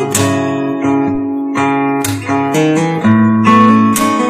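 Background music: plucked, strummed acoustic guitar playing chords.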